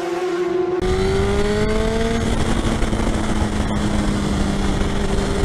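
Sport motorcycle engine running at road speed under heavy wind rush on the microphone, its note rising a little over the first couple of seconds and then holding steady. It cuts in suddenly about a second in, replacing a held electronic tone from the intro music.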